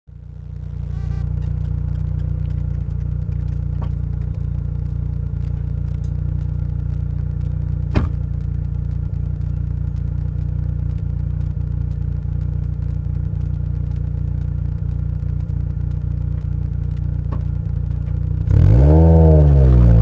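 1996 Mazda MX-5 Miata's supercharged 1.8-litre four-cylinder, with FastForward MP62 supercharger and Racing Beat exhaust, idling steadily close to the tailpipe, with a single click about eight seconds in. Near the end the engine revs up louder as the car pulls away, its pitch rising, dipping and rising again.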